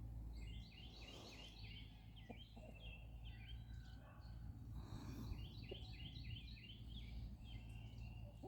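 Small birds chirping faintly: a quick run of short repeated chirps about a second in and another around five seconds, with scattered single chirps between, over a steady low rumble.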